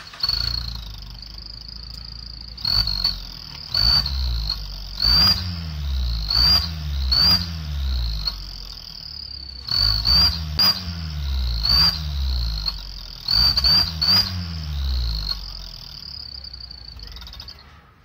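Aftermarket exhaust 'turbo whistle' on a Suzuki Swift's tailpipe: a steady high whistle over the engine's low idle note, chirping up in pitch with each quick rev of the engine, about a dozen blips in clusters. The whistle and engine fade out near the end.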